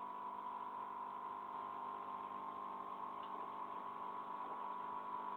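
Steady electrical hum from a CRT television, a buzz of several held tones.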